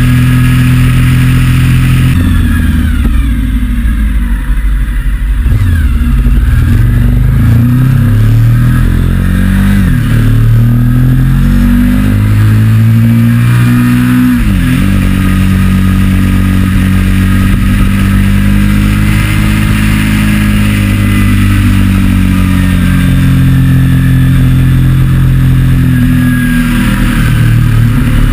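Sportbike engine running under way: the revs fall away a few seconds in, climb again in rising sweeps and drop sharply at a gear change about fourteen seconds in, then hold fairly steady at cruise.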